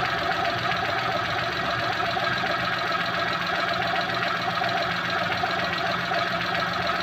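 Maruti Suzuki Alto's three-cylinder engine idling steadily, with the AC switched on to test the compressor. The compressor has been refilled with oil after running dry and has only a slight noise left, without the loud seized-piston-like noise it had before.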